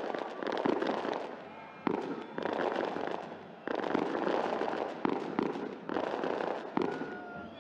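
Fireworks going off: a string of sharp bangs, roughly one every second or two, each followed by dense crackling.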